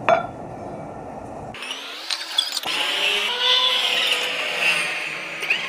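Manual lathe turning a plate with an insert cutting tool: a low running rumble, then, about a second and a half in, a high wavering screech from the cut.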